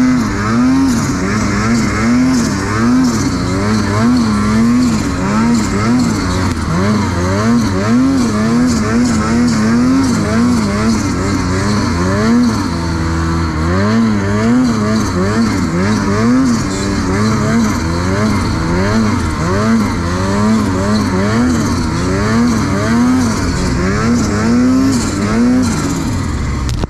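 Ski-Doo 850 two-stroke snowmobile engine revving up and down in quick repeated blips, about three every two seconds, as the throttle is worked while riding through deep powder.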